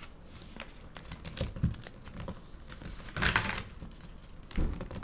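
A sheet of paper being folded and creased by hand: a few short rustles, the loudest about three seconds in.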